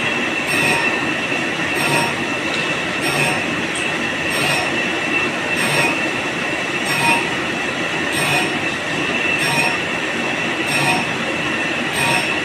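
Large lathe turning an injection-molding screw while a grinding wheel grinds its flights: a steady high squealing whine over machine noise, with a short swish about every 1.3 seconds as the screw comes round.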